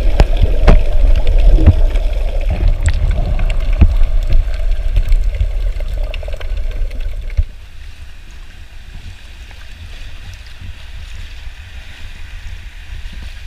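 Rumbling wind and water noise on a small boat, with scattered knocks and a steady mid-pitched drone. The noise drops off suddenly about halfway through to a quieter, even hiss of water and wind.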